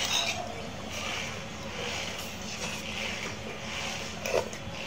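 Close chewing and slurping while eating shrimp tom yum soup, in a regular rhythm, with one short louder sound near the end.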